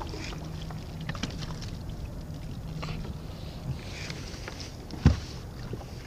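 Gear and handling knocks in a small fishing boat over a steady low background noise, with one sharp, loud thump about five seconds in.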